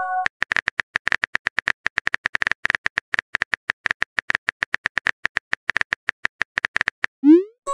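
Texting-app sound effects: rapid, irregular phone-keyboard typing clicks, several a second. They end in a quick rising swoop and a chiming message tone near the end, marking the next text message being sent. The tail of a similar chime is heard at the very start.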